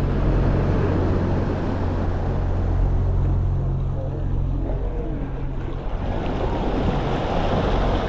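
A steady low motor hum, most likely a boat engine just offshore, under the wash of ocean surf. The hum fades out about six seconds in, and the surf grows louder near the end.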